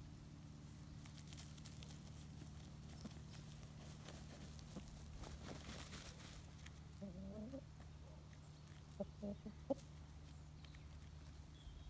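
Chickens dust bathing: faint scratching and rustling in dry soil, then a short wavering call about seven seconds in and a few short soft clucks a couple of seconds later.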